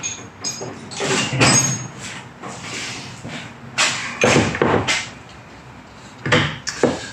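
Metal hand tools clattering and clinking as a tool-chest drawer is rummaged through and sockets are picked out and handled, in several bursts with a few short metallic rings.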